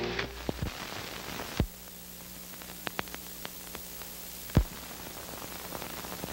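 Surface noise of an old film soundtrack over blank leader: steady hiss with scattered clicks and crackles, two louder pops about a second and a half and four and a half seconds in, and a low steady hum that comes in about a second and a half in.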